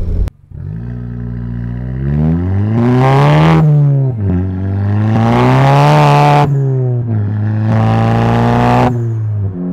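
Volkswagen GTI Mk7's turbocharged 2.0-litre four-cylinder through a Remus sport cat-back exhaust and APR catted downpipe, heard from the rear bumper under hard acceleration. The engine note climbs and then drops sharply at each upshift, about three times.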